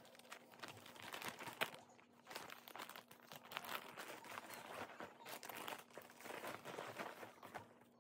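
Clear plastic zip-lock bags crinkling and rustling as clothes are stuffed into them and pressed down, with a sharp crackle about one and a half seconds in.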